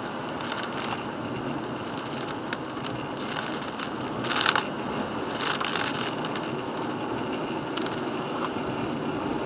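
Steady tyre and road noise heard from inside a car driving on a rain-soaked road, with scattered short clicks and rattles, the loudest cluster about four and a half seconds in.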